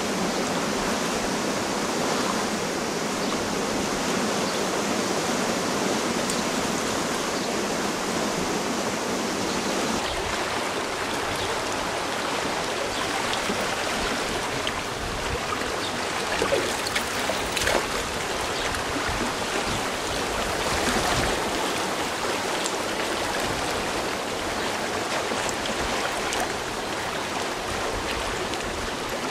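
A fast, shallow trout stream rushing over stones, a steady hiss of running water. The tone shifts about ten seconds in, losing some of its low rumble. A few brief sharp clicks or splashes come a little past the middle.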